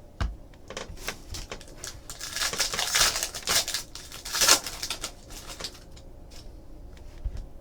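Trading cards and foil pack wrappers being handled: a run of soft clicks and rustles, heaviest from about two to five seconds in.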